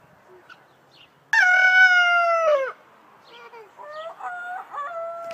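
Rooster crowing: one loud, long call about a second in that holds its pitch and falls away at the end, followed by quieter, wavering calls near the end.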